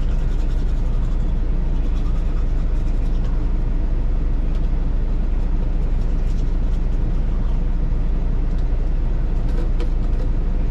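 Semi truck's diesel engine idling: a steady low rumble heard inside the cab, with faint scratching of a toothbrush over it.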